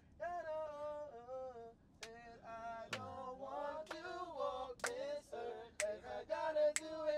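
A voice singing a slow melody in long, held notes, with a sharp tick about once a second from about two seconds in.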